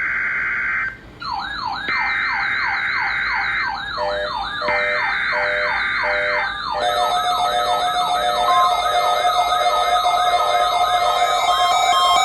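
Electronic emergency alert alarm made of layered tones: a siren sweeping up and down about three times a second under a fast-warbling high tone, broken by blocks of steady tone. From about seven seconds in, more steady and beeping tones pile on top.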